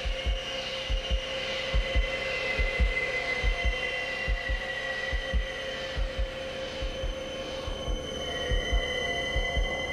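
Low, heartbeat-like double thumps, about one pair a second, over a steady hum and high ringing tones, with helicopters passing overhead near the end.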